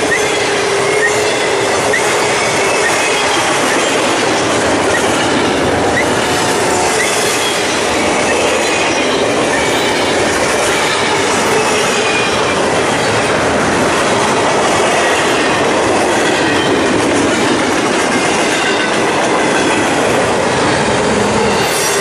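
Double-stack intermodal freight train's well cars rolling past close by: a loud, steady rumble and clatter of steel wheels on the rails, with faint high wheel squeal.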